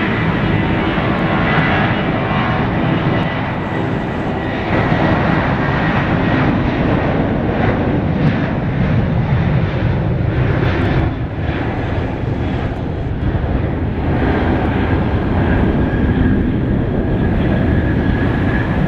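Boeing 737-800 jet engines (CFM56-7B turbofans) at takeoff thrust during the takeoff roll: a loud, steady rushing jet noise with a thin high whine over it.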